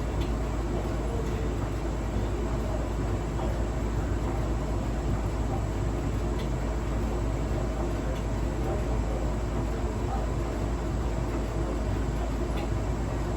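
Hotpoint washing machine running with a steady rumble, with a few faint clicks scattered through it, the kind of clicking the owner fears is a fault.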